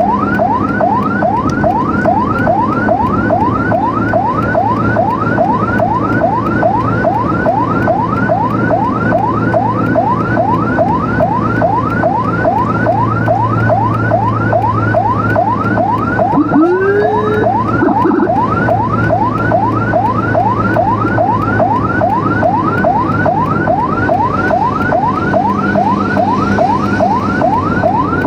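Emergency vehicle's electronic siren in rapid yelp mode: a rising sweep repeating about three times a second, over a steady low hum. A little past halfway a second, lower rising whoop sounds once.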